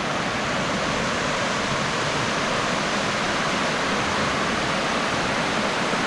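River water pouring steadily over a low, gently sloping cascade, an even rushing noise with no change.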